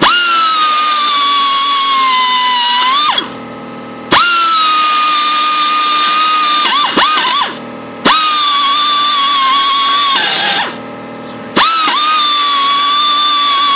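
Pneumatic die grinder running in four bursts of about three seconds each, a high whine with air hiss that starts abruptly, dips slightly in pitch and holds, then cuts off.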